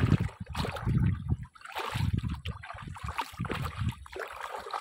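Shallow water sloshing and splashing in irregular surges around a person wading and working a set fishing line.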